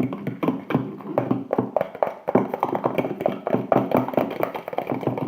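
A spoon stirring a thick salt-and-soap slime mixture in a bowl, giving a quick, irregular run of taps and clicks.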